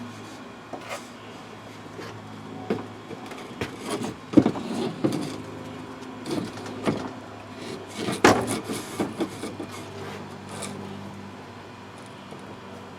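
Thin luan plywood panel being handled and pushed into place, with scattered knocks and scrapes of wood against the camper's frame; the two loudest knocks come about four and a half and eight seconds in.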